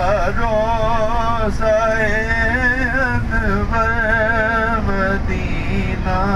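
A single voice singing a drawn-out melody whose pitch wavers and glides, pausing briefly a few times, over the steady low rumble of a moving vehicle.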